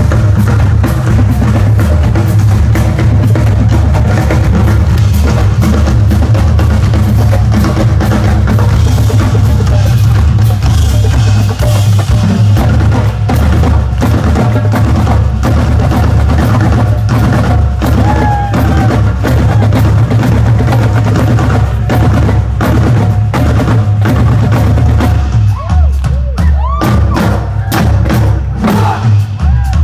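Live band music played loud, with a steady beat of drums and heavy bass.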